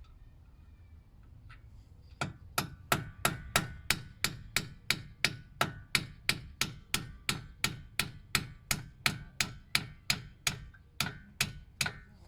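Hammer striking metal in a steady run of sharp taps, about three a second, starting about two seconds in: driving out a brake caliper's pad retaining pin.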